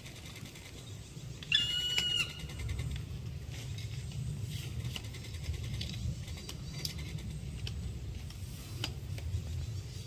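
Black woodpecker giving one loud, drawn-out call about a second and a half in, lasting under a second. A few faint, short high notes follow over a steady low rumble.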